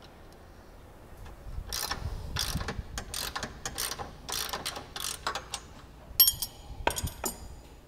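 Ratchet wrench worked in quick back-and-forth strokes, about three a second, undoing the nut on a radius rod's mounting bolt. A few sharp metallic clinks come near the end.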